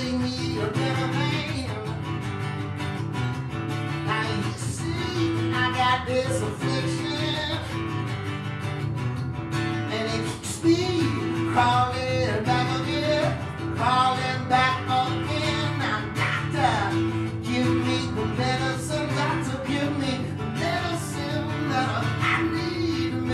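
Live acoustic song: a man sings while playing a steel-string acoustic guitar, with sung phrases coming and going over the steady guitar.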